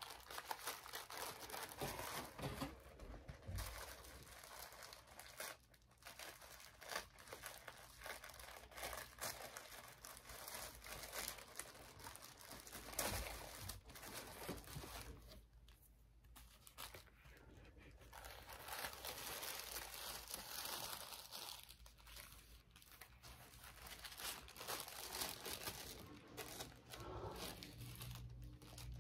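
Tissue paper rustling and crinkling as hands unfold it, in irregular spurts with a couple of short pauses.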